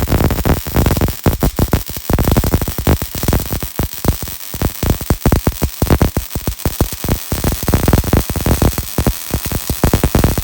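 Welding arc from a Hobart Multi-Handler welder, crackling loudly in a dense, irregular stream of sharp pops as a bead is laid.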